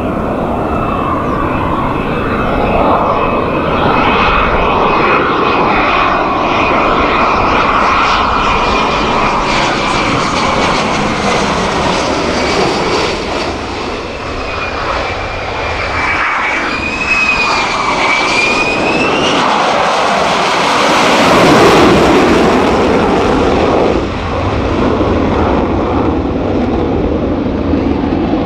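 F-35B fighter jet passing close on approach; its single turbofan engine makes loud jet noise with a high whine that slowly falls, then wavers around the middle. It is loudest a little past two-thirds in and eases off near the end.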